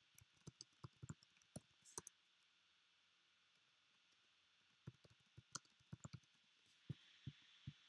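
Faint typing on a computer keyboard: a run of key clicks in the first two seconds, a pause, then a second run from about five seconds in.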